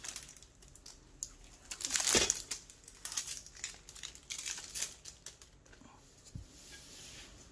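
Graphics-card packaging being handled: irregular crinkling and rustling, loudest about two seconds in, with one soft low thump near the end.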